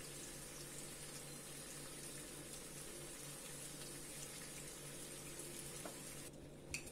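Chicken pieces frying gently in oil and juices in a clay tagine over a gas flame: a faint, steady sizzle with a low hum underneath.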